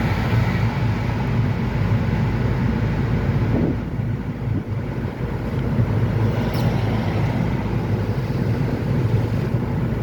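Steady low drone of a car's engine and tyres heard from inside the cabin while driving on an open road.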